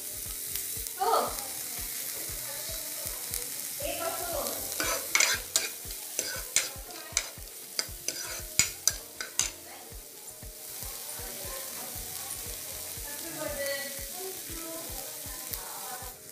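Diced onion, capsicum and carrot sizzling in butter and oil in a kadai on a low flame, stirred with a steel ladle. A run of sharp clicks of the ladle against the pan comes between about five and nine seconds in.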